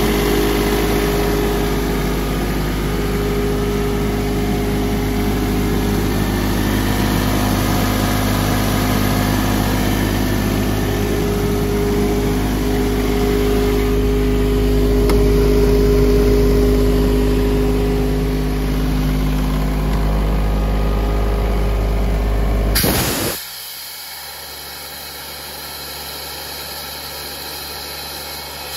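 Kaeser M27 mobile compressor's Kubota diesel engine running at a steady speed, then shutting off abruptly about 23 seconds in. A much quieter steady sound remains afterwards, with a short sharp noise at the very end.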